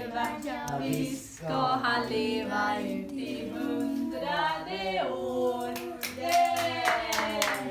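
Several voices singing a birthday song together as a cake with lit candles is brought out, with hand claps joining near the end.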